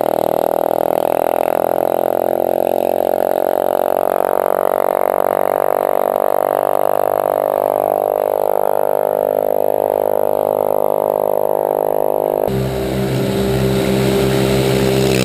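Minibike engine running hard, a loud steady high-pitched drone, heard from a camera mounted on the bike. About twelve seconds in, the note drops abruptly to a lower one.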